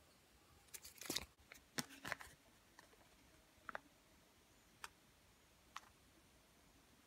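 Faint crinkling and rustling of paper handled and unfolded by hand for a second or two, then three soft clicks about a second apart.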